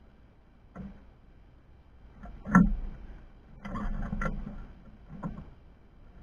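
Several short knocks: a loud one about two and a half seconds in, a quick cluster a second later, and fainter ones near the start and end.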